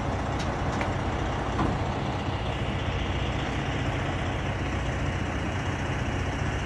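Heavy diesel engine running steadily, a deep even sound with no revving.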